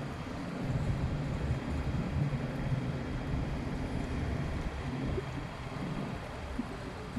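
Steady low rumble of a tour boat's motor while cruising, mixed with wind and water noise.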